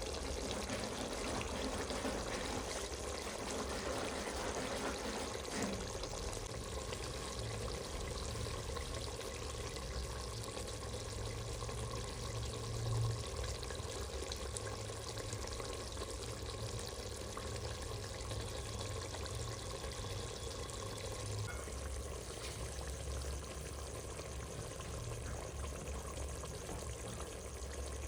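Steady watery hiss with a low rumble underneath: a curry cooking in a pot.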